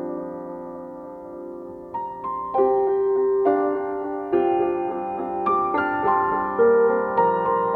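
Soft, slow background piano music: a held chord fading, then single notes entering about two seconds in and every half second to second after, each ringing on.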